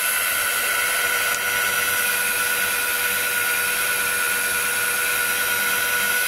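Makita 9237C electric rotary polisher running at a steady speed with a constant whine, buffing sanding marks out of plastic with cutting compound.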